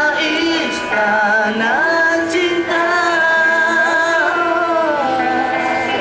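Male pop singer singing a Malay song live into a microphone over backing music, with one long held note in the middle.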